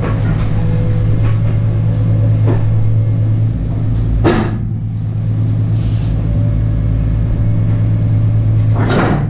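A vehicle engine idling steadily with a low hum. Two brief sharp noises come over it, one about four seconds in and one near the end.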